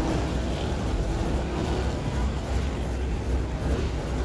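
Car engines running among a crowd of cars: a steady low rumble with no single event standing out.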